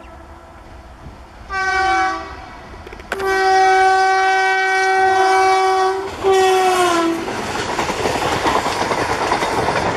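WDM-3A diesel locomotive's air horn honking three times: a short blast, a long blast of about three seconds, and a short blast, the first and last sagging in pitch as they die away. After the horn comes the steady rush and clatter of the train running past.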